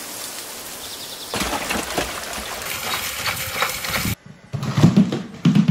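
Quadruped robot dog splashing through shallow puddle water, with irregular splashes and footfalls, after a second of steady hiss. It cuts off suddenly just after four seconds and gives way to low, pulsing thumps.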